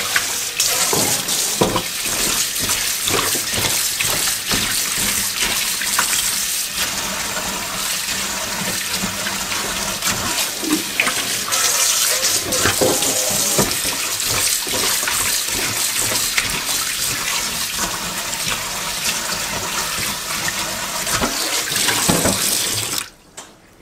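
Kitchen tap running into a stainless-steel sink while raw chicken drumettes are rinsed by hand in a steel bowl and colander, with scattered splashes and knocks. The running water cuts off suddenly near the end.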